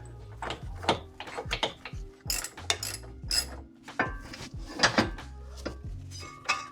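Irregular metallic clinks and clanks of hand tools, bolts and the new steel lower control arm being worked into place in the front suspension of a 2003 Infiniti M45.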